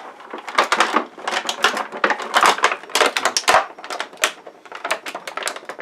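Stiff molded plastic packaging crackling and clicking in quick, irregular snaps as a toy speeder bike is worked out of its tray.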